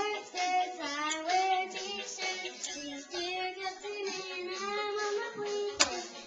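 A young girl singing a song in sustained, melodic phrases, with one sharp click or knock near the end.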